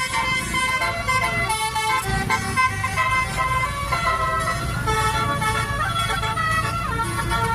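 Tour bus 'telolet' basuri horn playing a melody of quickly changing notes, over the low rumble of the bus.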